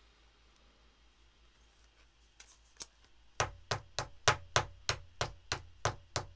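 A quick, even run of about ten sharp knocks, about three a second, beginning past the middle after two lighter taps.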